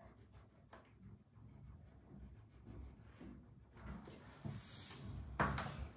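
Felt-tip marker scratching faintly on paper as a child colours in, with a short, louder noise near the end.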